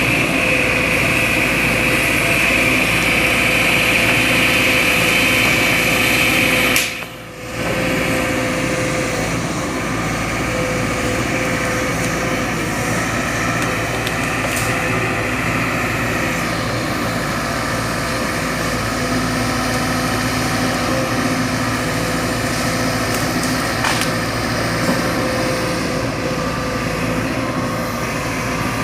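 Sumitomo SH210 hydraulic excavator running steadily, its diesel engine sounding under a steady high whine. The sound drops out sharply for a moment about seven seconds in, then resumes.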